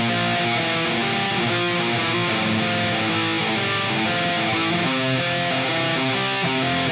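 Background music: a guitar-led rock instrumental passage, steady throughout, with singing coming in just after.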